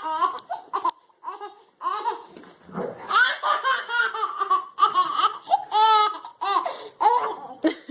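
A young child laughing hard in repeated high-pitched peals, pausing briefly about a second in, then laughing on.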